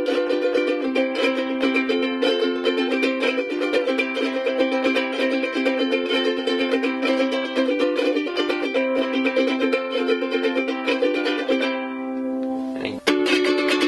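Cheap wooden ukulele strummed in a steady rhythm of chords. Near the end the strumming stops and the last chord rings away; after a short break, strumming starts again abruptly.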